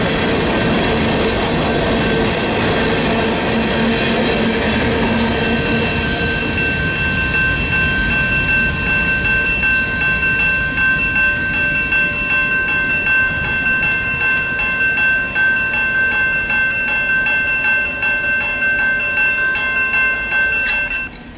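The last freight cars of a loaded rock train roll across the grade crossing, rumbling and clattering over the rails for the first several seconds. Then the railroad crossing bell rings on by itself in an even repeating pattern while the gates stay down, and it stops near the end as the gates rise.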